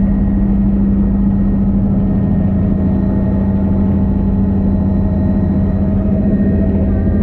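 Helicopter's engine and rotors running loud and steady, with a strong constant low tone and no change in pitch.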